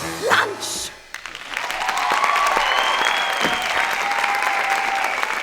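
The stage musical's accompaniment ends with a quick sliding note in the first second. The audience then applauds, with some cheering voices held over the clapping.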